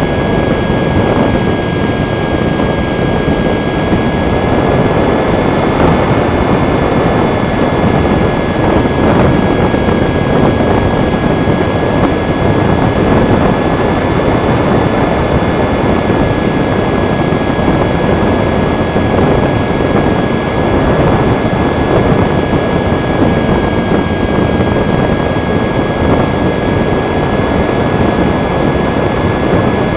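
HK Fox foam model glider's electric motor and propeller whining steadily at an unchanging pitch, heard from a camera on the airframe in flight, with heavy wind noise on the microphone.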